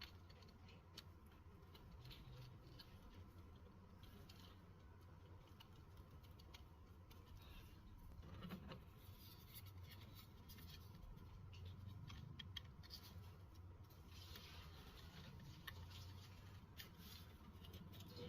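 Near silence with a low hum, broken by scattered faint light clicks and scratches, like small handling noises.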